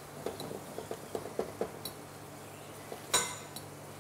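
A metal fork mashing boiled potatoes in a ceramic bowl: soft taps and scrapes of the tines against the bowl, then one sharp clink a little after three seconds.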